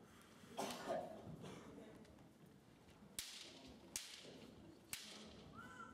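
Sharp cracks of bamboo shinai striking in kendo bouts, three of them about a second apart, after a louder short burst of shouting about half a second in.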